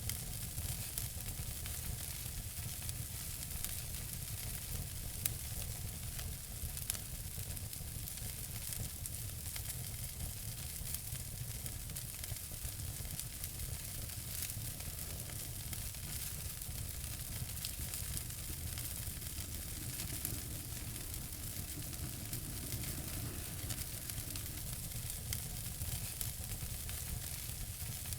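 Wood fire burning in a fireplace: steady hiss with dense small crackles and pops, and a low rumble of the flames.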